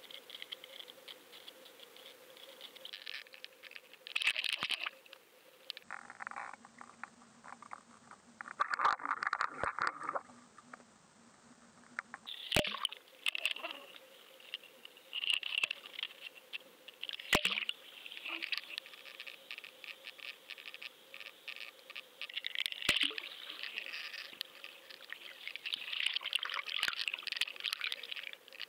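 Water rushing and crackling against an underwater action camera's waterproof housing as it is pulled through the water on a fishing line behind a lure. There are a few sharp knocks, two of them standing out about twelve and seventeen seconds in.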